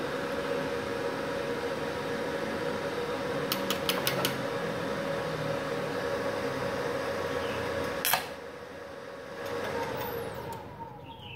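Multipro MMA 160 inverter welder set to about 100 amps running with a steady hum and fan noise, with a few short clicks. About eight seconds in there is a sharp crack as the arc is struck and the 900-watt household supply's breaker trips. The noise then drops, and near the end the fan winds down with a falling pitch as the machine loses power.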